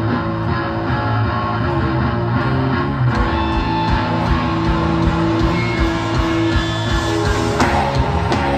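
A live hardcore punk band playing loud, with distorted electric guitar and bass holding chords. A steady low drum beat comes in about three seconds in.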